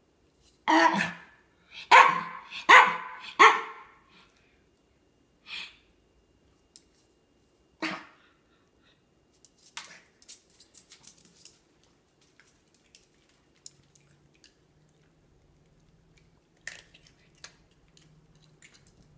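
Miniature pinscher barking in short, sharp barks while in a play bow, facing its kibble: four loud barks close together in the first few seconds, then single barks further apart. A patter of light clicks follows in between.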